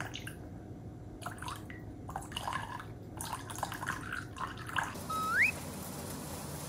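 A British shorthair kitten lapping at a thin stream of water poured from a plastic bottle, with small dripping and lapping clicks coming in clusters. About five seconds in, a short rising whistle-like squeak, followed by a steady hum.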